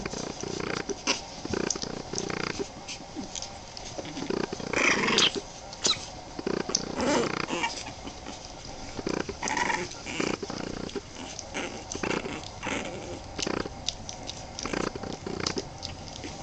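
A litter of 23-day-old Boston Terrier puppies giving short whines, several times, amid many small clicks and rustles as they squirm together.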